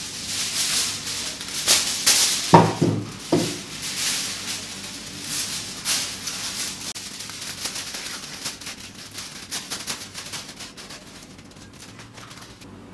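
Aluminium foil crinkling and rustling as it is crumpled and pressed over the rim of a plastic laundry basket, with a few sharper knocks about two and a half to three and a half seconds in. The crinkling thins out toward the end.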